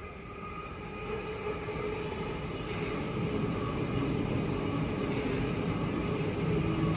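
Sydney electric suburban train approaching and growing steadily louder, its traction motors giving a steady whine over the rumble of wheels on rail.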